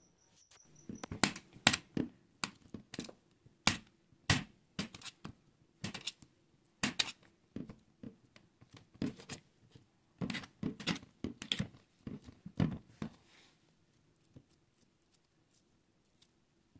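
Knife slicing boiled potato on a stainless steel plate, the blade knocking against the steel in an irregular run of sharp clicks that dies away about thirteen seconds in. A faint steady hum lies underneath.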